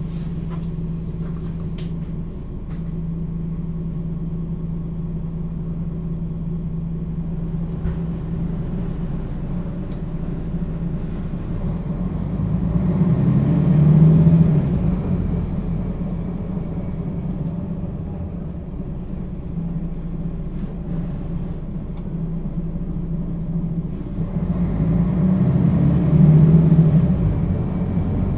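Mercedes-Benz O 530 G Citaro articulated bus heard on board: its diesel engine and Voith automatic gearbox run with a steady low hum. The hum grows louder twice, about halfway through and near the end.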